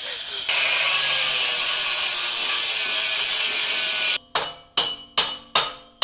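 Hand-held die grinder cutting into rusted, seized exhaust header bolts: a loud steady hiss that bites harder about half a second in and cuts off abruptly after about four seconds. Then sharp metal hammer blows, a little over two a second, each ringing briefly.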